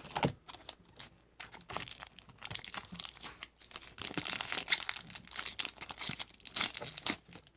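A trading card pack wrapper being torn open and crumpled by hand, with a dense crinkling crackle over several seconds.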